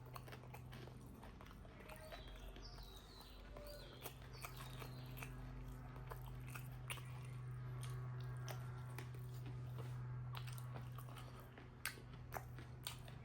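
Close-up chewing and biting of a pork meal, with many short crisp clicks of mouth and food sounds scattered throughout, over a steady low hum.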